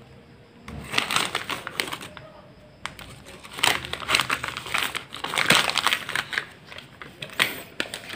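Foil sachet crinkling as it is handled and powder is spooned out of it: irregular crackles starting about a second in and going on throughout.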